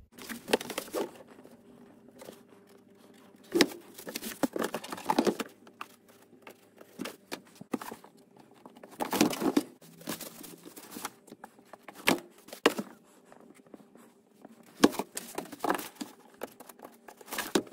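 A thin clear plastic storage box, 65-litre size, being handled and shifted about on a cardboard-covered workbench: irregular scrapes, rustles and knocks of plastic against cardboard, some sharp and several loud.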